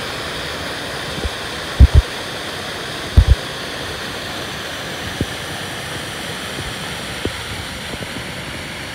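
Steady rushing of waterfalls pouring down a canyon wall into a river. Two pairs of dull low thumps, about two and three seconds in, with a couple of fainter single thumps later.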